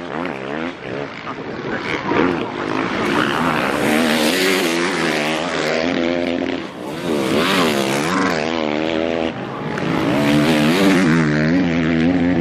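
Motocross race bikes coming past one after another, each engine revving up and down repeatedly as the riders work the throttle and shift through the corner, with the loudest passes swelling in and fading out several times.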